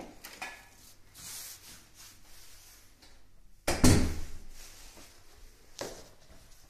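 A loud thump about halfway through that dies away over half a second, then a softer knock near the end.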